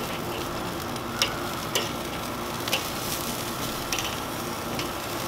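Chicken wings sizzling on a charcoal kettle grill's grate, a steady hiss, with a few sharp clicks of metal tongs against the grate as the wings are moved over the fire.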